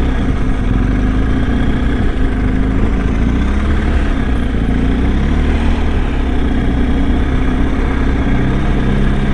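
BMW R1250 GS boxer-twin motorcycle engine running steadily, its pitch shifting slightly up and down.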